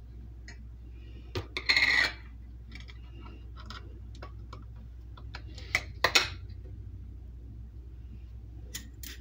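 Metal canning lids clinking and scraping as they are set onto filled jars: a few sharp clicks and a short scrape about two seconds in, the loudest click about six seconds in, over a steady low hum.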